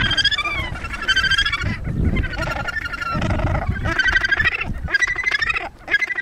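Australasian gannets in a nesting colony calling: a run of harsh, pulsed calls, one after another and overlapping, each under a second long.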